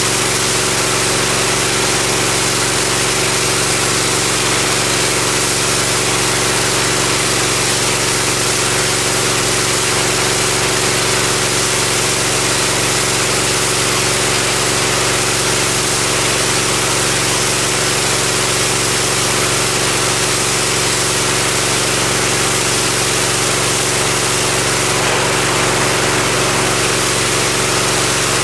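Engine-driven pressure washer running steadily while its high-pressure spray hisses against a concrete sidewalk.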